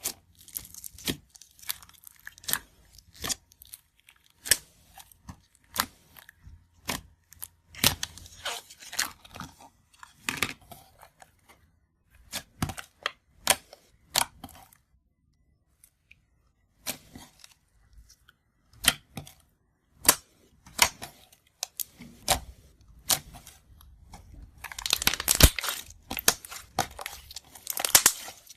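Slime squeezed and poked by hand: irregular sharp sticky pops and clicks as air pockets burst, thickening into a dense crackling stretch near the end.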